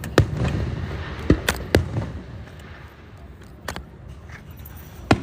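Fireworks bursting overhead: a string of sharp bangs, one just after the start, three in quick succession around a second and a half in, another near four seconds and one near the end.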